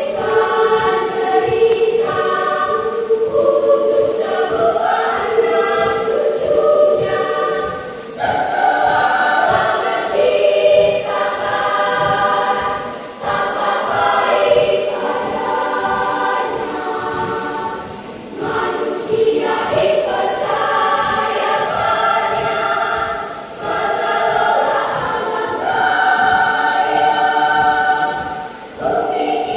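Children's choir singing in parts, in phrases broken by brief pauses every five seconds or so.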